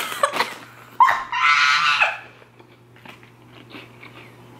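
A high, strained vocal cry about a second long, starting about a second in, followed by faint rustling and small clicks.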